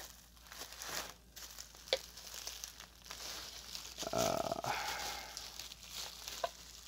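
Bubble wrap crinkling and rustling as hands turn it over and feel for the opening, with a few sharp clicks and a louder stretch of rustling about four seconds in.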